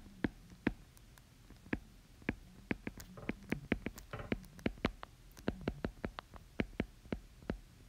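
Stylus tip tapping and clicking on a tablet's glass screen during handwriting: a quick, irregular run of light clicks, a few each second.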